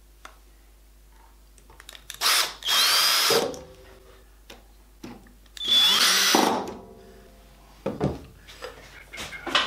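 Cordless drill-driver spinning in two short bursts of about a second each, as it drives screws in the table saw's zero-clearance throat plate. Its motor pitch rises and falls with each burst, with small clicks of handling between them.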